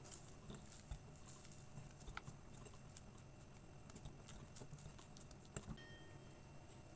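Faint soft patting and squishing of a hand kneading oiled cookie dough in a bowl, with scattered small clicks.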